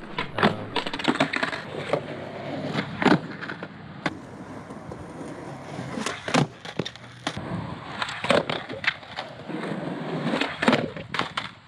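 Skateboard on a concrete skatepark: wheels rolling, then a string of sharp clacks and smacks as the board is flicked and slaps down on the ground during shove-it attempts.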